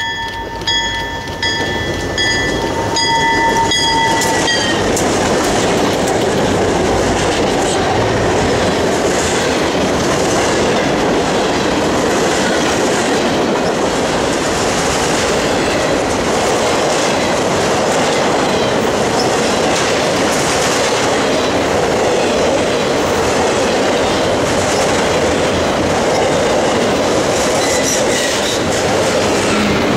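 Freight locomotive's air horn sounding one long blast that ends about four seconds in. Then a freight train of autorack cars rolls past with steady, loud wheel-on-rail rumble and clatter.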